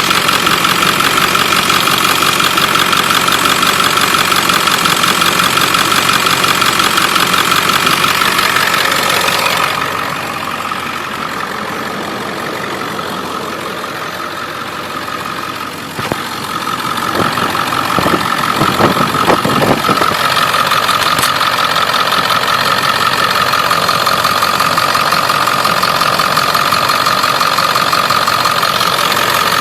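Ford 7.3 Powerstroke V8 turbo-diesel idling with a steady, rapid tapping/ticking from an exhaust leak at the up-pipe. For several seconds in the middle the sound turns duller and quieter, with a few knocks, before the ticking idle returns.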